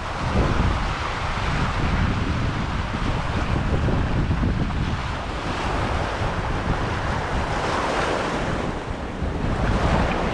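Ocean waves washing and breaking over a rocky shoreline, surging louder a few times, with wind rumbling on the microphone.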